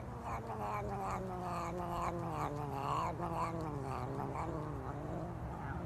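A domestic cat yowling: one long drawn-out call that wavers and slowly falls in pitch, stopping just before the end.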